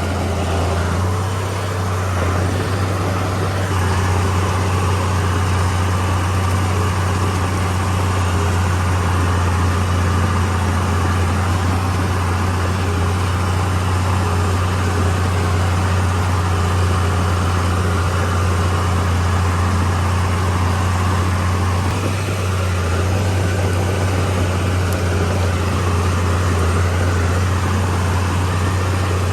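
Komatsu D31P bulldozer's diesel engine running steadily with a low drone, its note easing briefly twice.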